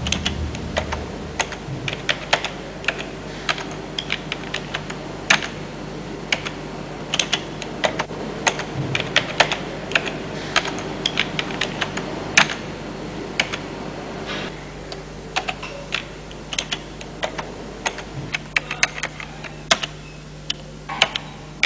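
Typing on a computer keyboard: irregular keystroke clicks, a few a second, over a steady low hum.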